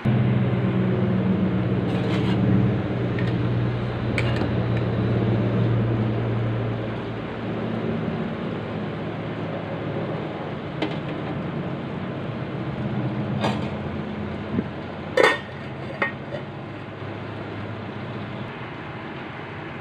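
A stainless steel pot of fish and vegetables boiling hard on a gas stove, a steady low rumble. A few sharp metallic clinks break in, the loudest about fifteen seconds in as the steel lid goes onto the pot.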